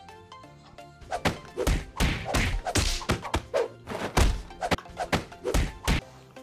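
A quick series of about a dozen dull thumps, some followed by a short falling tone, over light background music.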